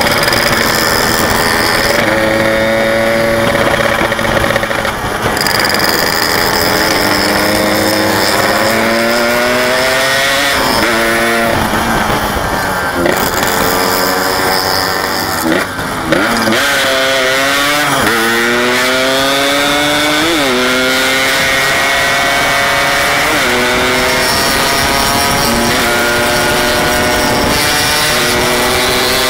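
Yamaha RX-King 135cc two-stroke single-cylinder motorcycle engine under way, its pitch climbing under throttle and dropping back several times as it shifts through the gears, then holding fairly steady near the end.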